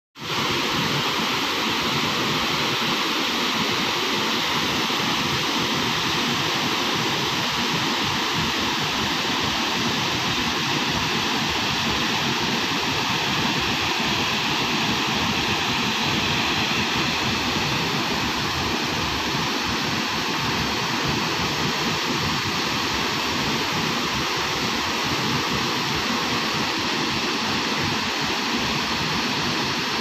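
A wide waterfall carrying a heavy flow of muddy floodwater over a rock ledge, making a steady, unbroken rush of falling water.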